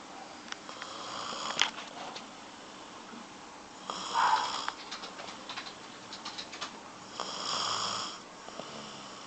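Snoring in sleep: three long snoring breaths about three seconds apart, with small clicks between them.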